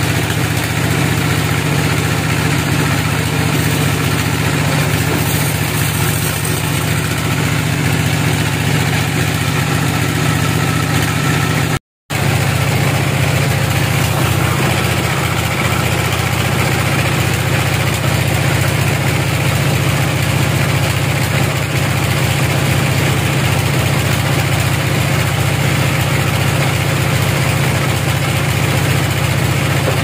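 Band sawmill running with a loud, steady drone, its blade sawing teak logs. The sound drops out for an instant about twelve seconds in.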